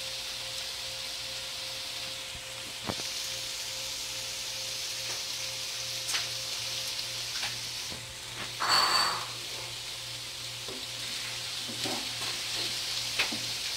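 Beaten egg frying in a thin layer in a nonstick pan, a steady soft sizzle as it sets into a flat omelette. There are a few faint clicks, and a brief louder noise about nine seconds in.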